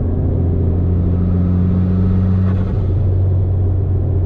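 Mitsubishi Lancer Evolution X's turbocharged four-cylinder running under light boost, heard from inside the cabin as a steady low drone. A higher steady tone rides over it and stops just under three seconds in.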